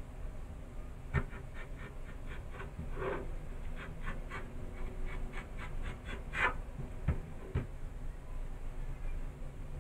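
Kitchen knife splitting yardlong beans lengthwise on a plastic cutting board: a run of short scratchy ticks, about three a second, as the blade cuts along the bean, with a few dull knocks of the knife and beans on the board.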